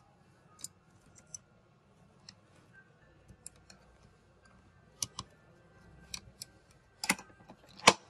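Small sharp clicks and taps of hard parts being handled as a 2.5-inch SATA SSD is seated and pressed into a laptop's drive bay. The clicks are scattered, with the loudest two near the end.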